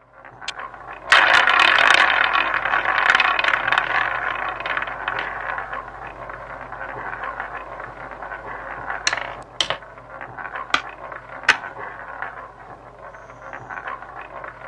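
Online roulette game's spin sound effect: a ball rolling around the wheel, loud at first and slowly dying away, then a few sharp clicks as it bounces over the pockets and settles.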